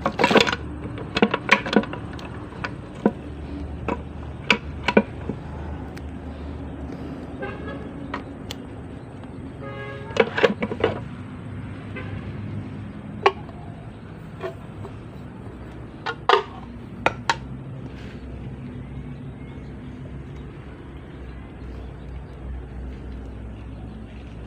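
Scattered sharp metallic clinks and knocks of tools and parts during manual gearbox disassembly, most of them bunched near the start and again around the middle, over a steady low hum.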